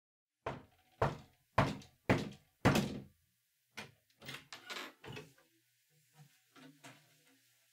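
Five loud knocks on a wooden door, about two a second, followed by the latch clattering and the door being opened, with a few faint thuds near the end.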